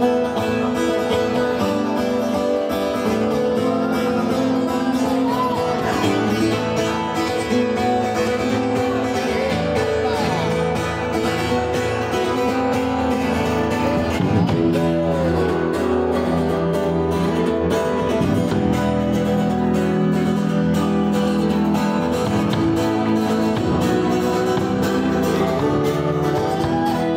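Live band playing an instrumental passage, led by acoustic guitar over held chords, with some sliding notes and no singing.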